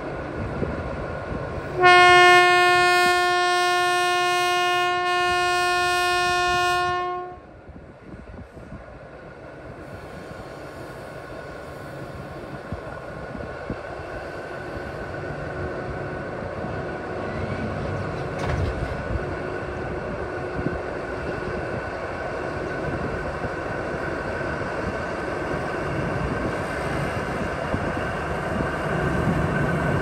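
A diesel locomotive, an SRT Alsthom locomotive, sounds one long, steady horn blast of about five seconds. It then keeps running as it approaches, its engine and wheels getting steadily louder.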